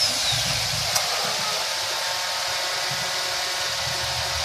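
Toyota VVT-i four-cylinder petrol engine idling steadily just after being started, heard as an even running noise with a single sharp click about a second in.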